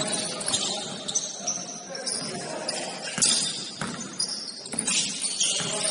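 Basketball game sounds in a gym: sneakers squeaking on the hardwood court in short, high-pitched chirps, a ball bouncing in sharp knocks, and players' voices in the hall.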